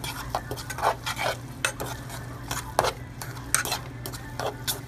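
A utensil stirring cooked instant noodles and their seasoning in a pan, with irregular scrapes and clicks against the pan, over a steady low hum.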